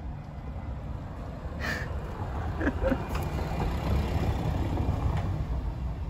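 Low rumble of a motor vehicle passing on the street. It swells through the middle and eases off near the end.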